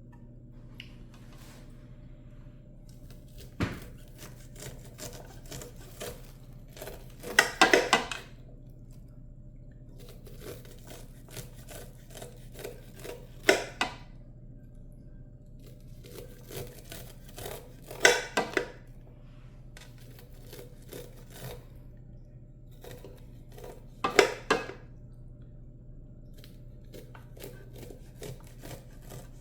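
A knife cutting the kernels off warm ears of corn. Light scraping ticks run between clusters of sharp knocks as the blade strikes the board or dish, about every five seconds.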